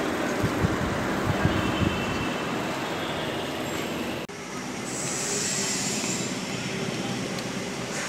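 Wind buffeting a phone's microphone, with low thumps over the first two seconds, over a steady rushing roar of wind and city noise. The sound cuts out for an instant about four seconds in.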